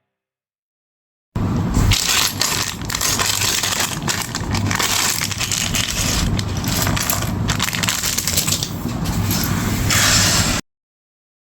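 Plastic being handled, a dense run of crackling and rustling that starts suddenly about a second in and cuts off just before the end.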